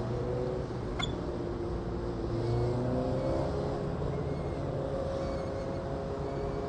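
Steady low rumble of road traffic, with slowly rising and falling engine tones and a single click about a second in.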